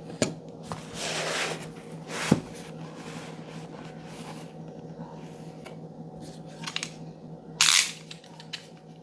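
Motherboard packaging being handled: irregular rustling and scraping with a few sharp clicks, the loudest a short burst of rustling about eight seconds in, over a low steady hum.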